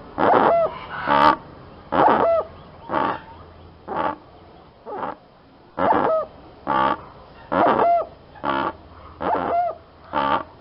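Trinidad piping guan (pava pipile) calling: a steady series of short calls, about one a second, each with a quick upward hook at its end.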